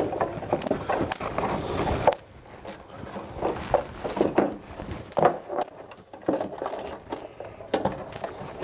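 Hands working parts down inside a boat hull. A dense rustling scrape lasts about two seconds and ends in a sharp knock, followed by scattered light knocks and clicks.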